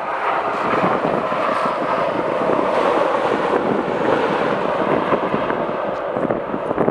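Jet airliner's engines running loud in a steady rush as it passes, with gusty wind buffeting the microphone.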